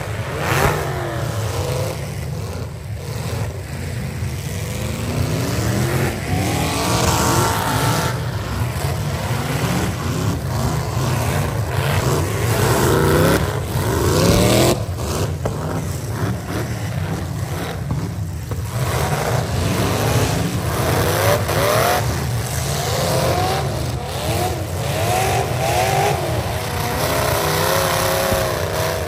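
Several V8 demolition derby car engines revving hard, their pitch climbing and falling again and again, over a steady low rumble. A few sharp crashes of cars ramming each other cut through.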